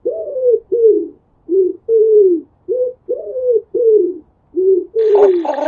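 Pigeon cooing: a run of short, low coos at about two a second, each rising then falling in pitch. Near the end a different recording cuts in with higher, arched calls.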